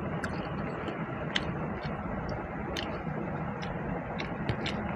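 Eating sounds from someone having rice pulao and chicken curry: scattered small clicks and smacks, about one every second, over a steady background hum.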